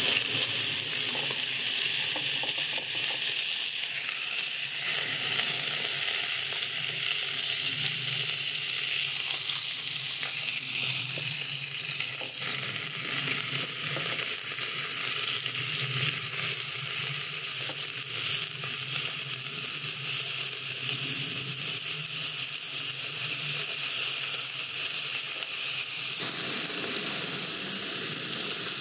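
Sliced pork belly frying on a thick iron griddle plate (Yokozawa Teppan): a steady sizzle with fine crackling of the rendering fat.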